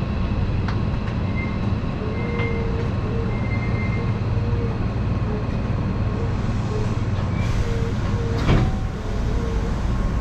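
Hankyu 7000-series electric train running, heard from inside behind the cab: a steady low rumble with a faint on-and-off hum. A single sharp clank comes near the end.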